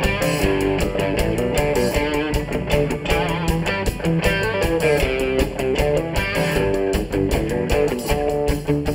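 Live band playing an instrumental passage: electric guitar and electric bass over a drum kit.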